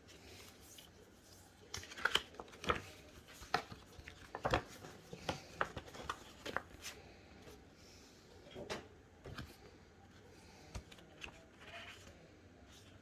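Handling noises while a boxed monitor is unpacked or put together: a run of short clicks, taps and rustles from packaging and parts, busiest in the first half, with a few more knocks later.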